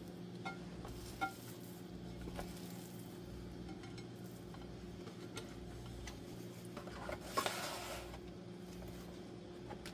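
Plastic bowl scraper working risen sourdough dough in a glass mixing bowl as it is punched down: faint scrapes and light clicks against the glass, with a brief louder scrape about seven seconds in, over a steady low hum.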